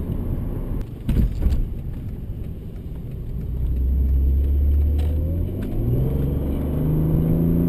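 Mercedes C32 AMG's supercharged V6 heard from inside the cabin, pulling under acceleration: the engine note swells over the first half and climbs in pitch over the second half. A brief clatter about a second in.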